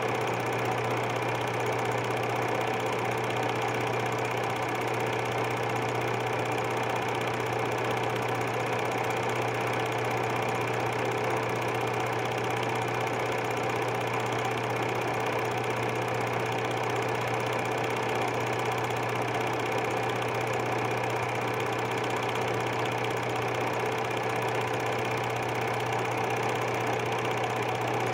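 Super 8 film projector running, a steady mechanical hum that does not change.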